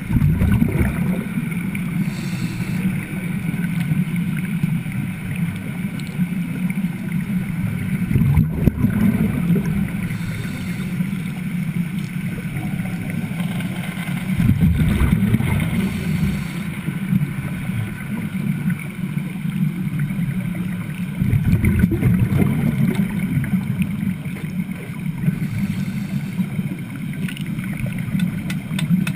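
Underwater wet welding of an overhead pass with Broco rods: a steady low rumbling and bubbling, with louder surges about every six or seven seconds.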